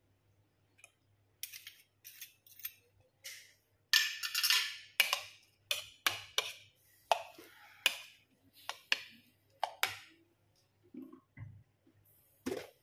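A metal spoon stirring a wet chopped dip in a ceramic bowl, scraping and clinking against the bowl in short, irregular strokes. It starts about a second and a half in.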